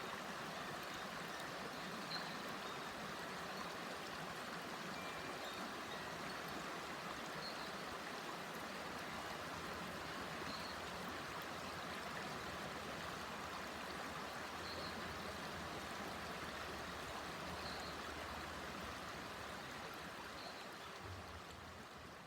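A river stream babbling steadily, fading slightly near the end.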